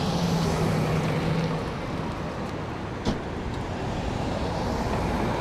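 Steady rumble of a running vehicle engine, with a low hum that fades out about a second and a half in and a single short click about three seconds in.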